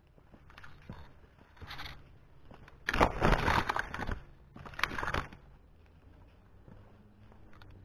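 Footsteps crunching and scraping on a dirt mountain trail. A loud scraping burst comes about three seconds in and lasts about a second, followed by a shorter one about five seconds in.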